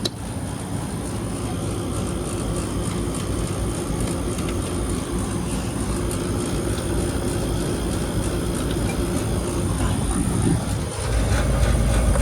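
Air-conditioning outdoor condensing unit running steadily, fan and compressor, with a low rumble that grows louder near the end.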